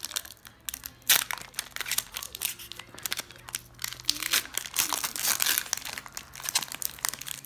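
Foil wrapper of a Pokémon Evolutions booster pack crinkling and crackling as it is handled and torn open, with a sharp crackle about a second in.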